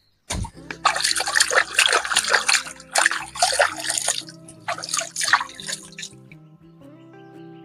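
Water splashing and sloshing in irregular bursts, with background music underneath. The splashing stops about six seconds in and the music carries on alone.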